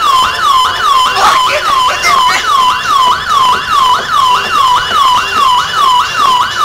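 Siren-style electronic effect in the dance track: a loud, rapidly repeating falling yelp, about three a second. It takes over from the beat, which drops away beneath it.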